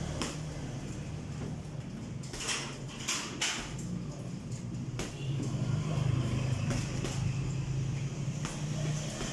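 Boxing-gloved punches landing on a hanging heavy bag, single blows and quick pairs at irregular intervals, over a steady low hum that gets louder about halfway through.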